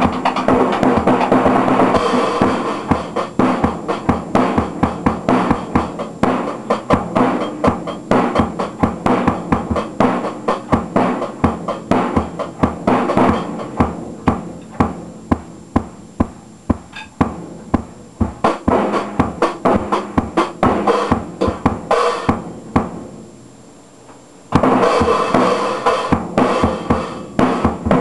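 Drum kit played with sticks: a fast, busy run of snare and bass drum strokes with cymbals, easing off about 22 seconds in and coming back in loudly about two seconds later.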